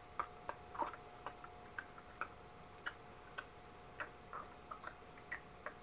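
Faint, irregular light clicks and taps, about two or three a second and unevenly spaced, over a faint steady hum.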